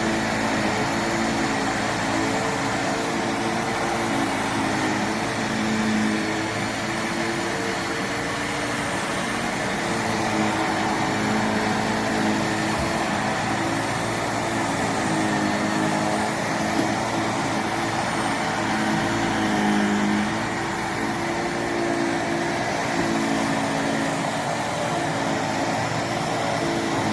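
Handheld anti-mite mattress vacuum (VOLUEX Jimmy JV35) running steadily. Its motor gives a continuous whirring hiss with a hum that wavers slightly in pitch.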